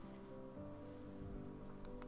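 Soft instrumental background music with sustained, gently changing notes.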